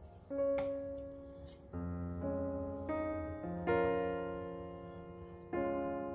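Soft background piano music: a new chord or note struck about every second, each left to ring and fade.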